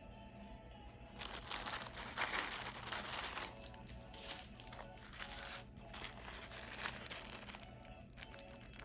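Crinkling and crunching of packaging being handled, starting about a second in and loudest soon after, over steady background music.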